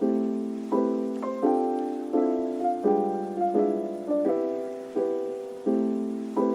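Background piano music: gentle chords struck about every three quarters of a second, each fading before the next.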